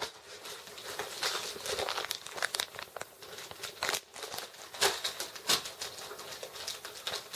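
Plastic bags of soft-plastic fishing baits crinkling and rustling as they are handled and sorted, with a few sharp clicks along the way, the loudest about five seconds in.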